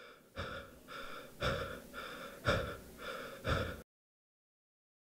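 A person breathing hard and fast in ragged gasps, about seven breaths in quick succession, cut off abruptly about four seconds in, followed by total silence.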